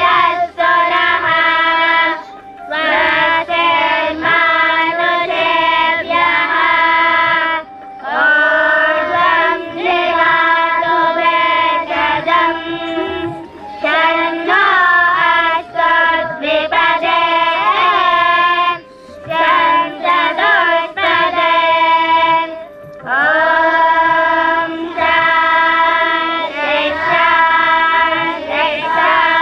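Children's voices singing a Sanskrit benediction chant together, in long held phrases broken by short pauses every two to four seconds.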